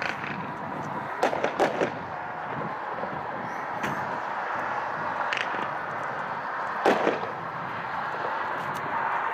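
A 15-shot 500-gram consumer fireworks cake (Night Flight) firing: a string of sharp reports. The loudest come as a quick cluster about a second in and another about seven seconds in, with single shots between, over steady background noise.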